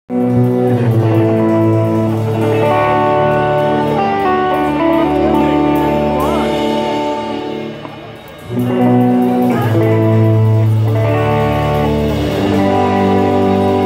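Live rock band playing amplified music led by electric guitars. The music briefly falls away a little past the middle and then comes back in full.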